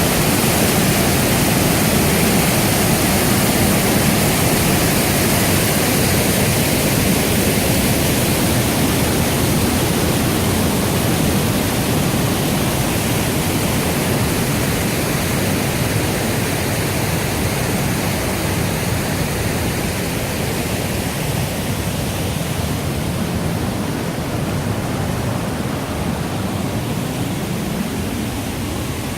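Millstone River water rushing, a steady loud noise that slowly grows a little quieter over the last third.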